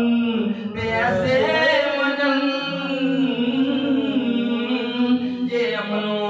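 A man chanting a devotional Urdu naat into a microphone, in long, slowly wavering held notes.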